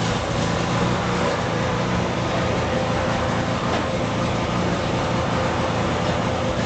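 A motor or engine running steadily, with a low hum under an even noise.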